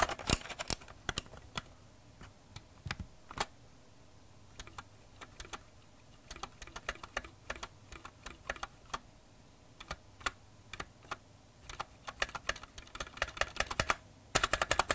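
Cooler Master CK550 mechanical keyboard with Gateron Red linear switches: a stabilized long key being pressed and released over and over, the keypresses clicking one at a time and spread out through the middle, then a quick run of presses near the end.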